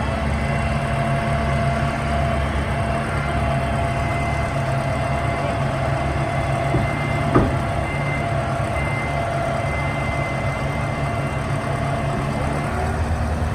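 Hopto 1900 hydraulic excavator's engines running steadily, with a single sharp click about seven seconds in.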